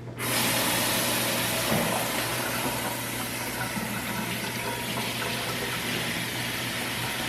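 Kitchen faucet turned on and running into the sink for washing dishes: a steady rush of water that starts suddenly just after the beginning.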